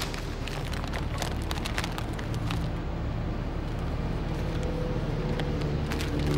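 Newspaper pages rustling and crinkling as they are opened and handled, over a steady street-traffic hum. Music with held notes fades in near the end.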